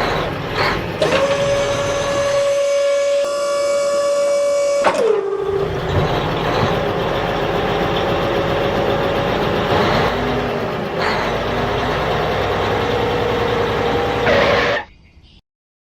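DIY mini wheat thresher running on its small electric motor: a steady high whine over rattling and clatter. About five seconds in the whine drops sharply in pitch and then slowly climbs back. Near the end the sound cuts off abruptly.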